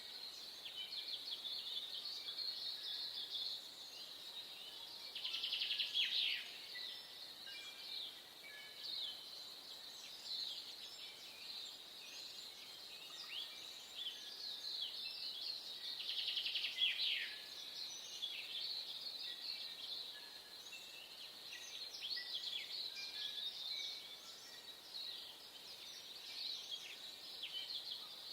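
Dawn chorus of several songbirds: overlapping high chirps and rapid trills, with louder bursts of trilling about five seconds in and again around sixteen seconds.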